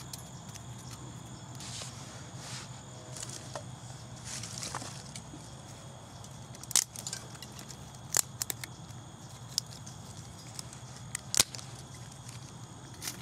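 Small dry sticks and twigs rustling and scraping as they are set into a stainless steel folding wood stove, followed by about five sharp snaps over the next few seconds.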